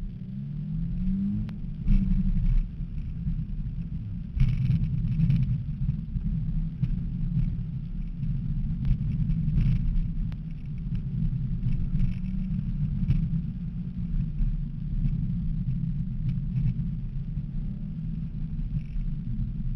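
2008 Nissan 350Z's 3.5-litre V6 engine running hard during a wet autocross run, a low rumble with revs rising about a second in, then rising and falling through the rest.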